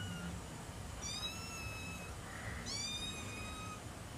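A kitten mewing twice, high-pitched, each call about a second long and starting with a slight drop in pitch before holding steady.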